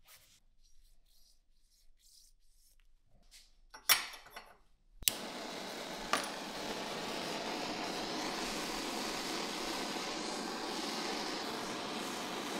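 A few faint handling clicks, then two sharp clicks and a handheld butane torch lighting about five seconds in, its flame then hissing steadily.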